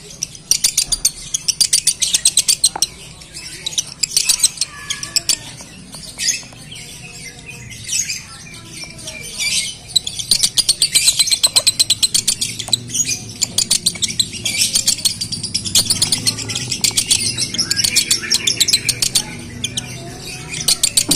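Male Fischer's lovebird singing a long, very rapid, high-pitched chattering trill in the 'konslet' style, in long runs with short breaks, the kind of song used to train young males.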